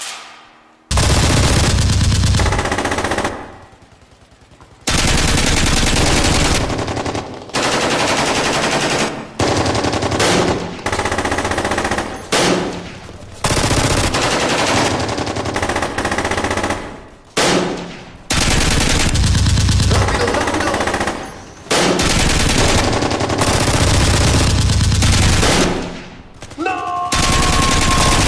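Automatic gunfire in long bursts of rapid shots, several seconds each, broken by short pauses. Near the end a brief high whine sounds over the firing.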